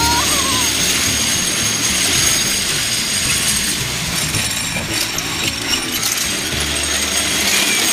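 Rollers of a long metal roller slide clattering under a rider sliding down at speed: a steady, rapid rattle.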